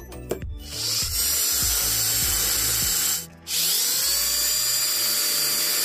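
Electric drill running in two long bursts, each rising in pitch as the motor spins up and then holding steady, with a short pause about three seconds in: drilling a hole through an old battery case.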